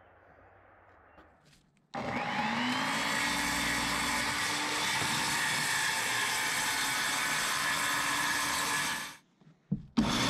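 An electric power tool motor starts with a short rising whine about two seconds in and runs at a steady high speed, then cuts off abruptly near the end. A brief burst of the same sound follows at the very end.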